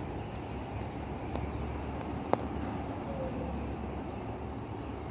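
Steady low outdoor rumble, with one sharp click a little over two seconds in.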